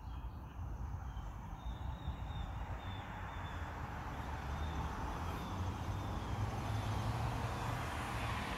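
Outdoor ambience: a low rumble with a wash of noise that swells over the second half, and faint repeated high chirps in the first half.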